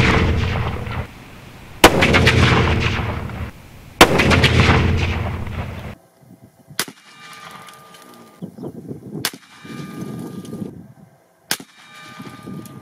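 Two rifle shots from a .450 Bushmaster Ruger American Ranch bolt-action rifle, about two seconds apart, each echoing for about a second and a half; the echo of a shot fired just before is fading at the start. About six seconds in it turns much quieter, with three sharp clicks a couple of seconds apart.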